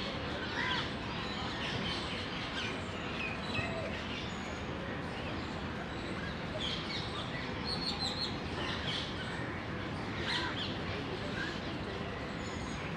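Birds chirping and calling, many short high chirps scattered throughout, over a steady background noise.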